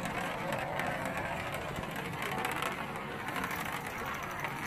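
A coin rolling round and round a plastic coin-donation spiral funnel, making a steady whirring rumble.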